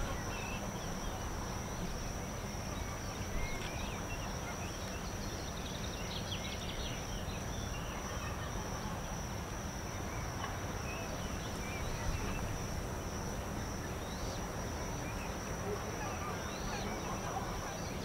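Steady background ambience: an even hiss with a constant high whine and scattered faint chirps, without a clear single source.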